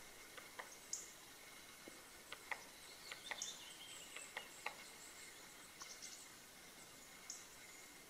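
Quiet woodland background: faint scattered clicks, a cluster of them in the middle, with a few brief high-pitched chirps.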